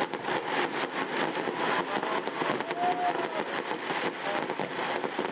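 Fireworks crackling: many small, irregular sharp pops over a steady outdoor hubbub with faint voices.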